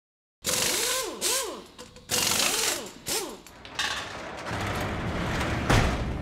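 Intro sound effects: four short bouts of metallic rattling and clanking with squeaky tones that rise and fall, then a swelling mechanical rush that ends in a heavy hit near the end.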